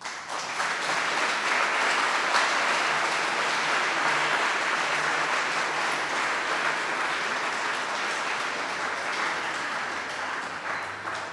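Audience applauding, swelling within the first second and slowly tapering off near the end.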